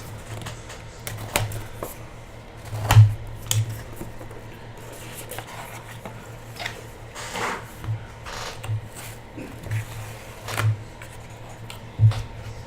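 Trading cards and their cardboard and wrapper packaging being handled: scattered rustles and light clicks, with sharper knocks about three seconds in and near the end.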